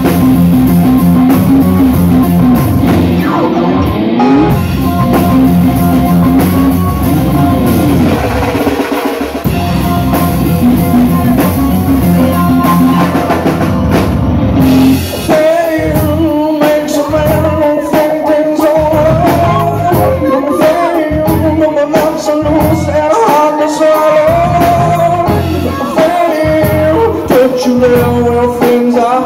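Live rock band playing loudly, with drum kit and electric guitar. A dense, held chordal passage gives way about halfway through to a wavering lead melody line over the beat.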